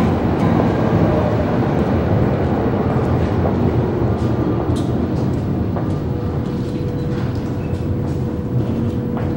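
Berlin U-Bahn underground train pulling into a station and coming to a stop at the platform: a steady low rumble, with a level hum setting in about six seconds in.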